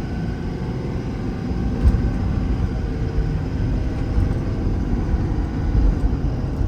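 Ford 6.7 Power Stroke V8 turbo-diesel pulling under acceleration, heard from inside the cab, its pitch climbing and dropping back as the six-speed automatic shifts up through the gears.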